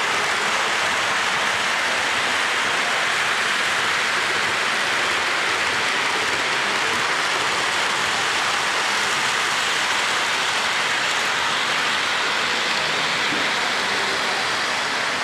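Steady rolling hiss and rumble of O-gauge model trains running on three-rail metal track, even and unbroken.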